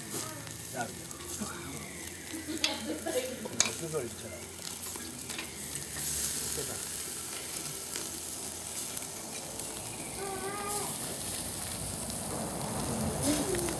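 Chicken sizzling over hot charcoal on a kettle grill, a steady crackling hiss, with a few sharp clicks about three seconds in.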